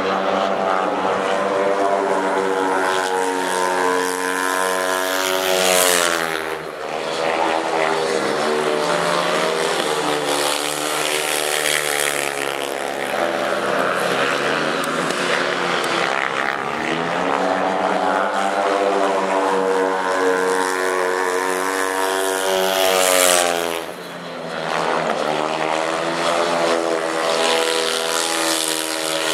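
A speedway motorcycle's single-cylinder methanol engine running laps on a shale oval, its pitch rising as it accelerates down the straights and falling as it backs off into the bends. It is loudest as the bike passes close, about 6 s in and again about 23 s in.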